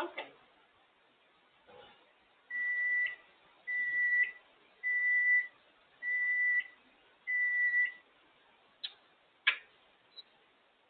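African grey parrot whistling five level, evenly spaced notes, each with a short upward flick at its end, along with a few short clicks.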